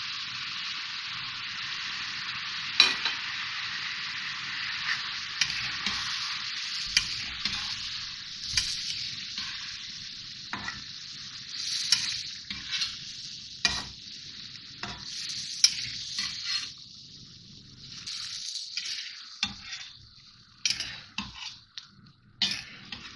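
Chicken pieces and ginger-garlic paste frying in hot oil in a karahi over a high flame, a steady sizzle. A spatula stirs and scrapes against the pan with sharp knocks every second or two. The sizzle fades and turns patchy in the second half.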